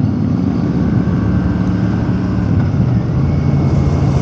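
Royal Enfield Super Meteor 650's 648 cc parallel-twin engine running with the bike under way, over a steady rush of noise. Its pitch steps down a little about three seconds in.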